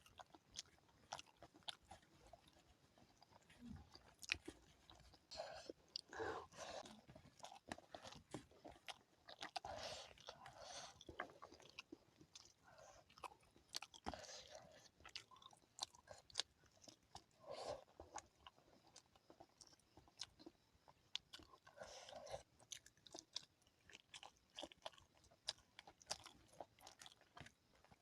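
Quiet close-up eating sounds of a mouthful of curry and rice being chewed: irregular wet mouth noises with sharp little clicks and crunches scattered throughout.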